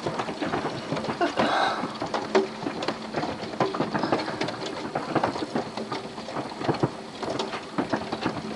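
Large hailstones pelting down in a heavy hailstorm: a dense, irregular clatter of many sharp impacts over a steady rushing hiss.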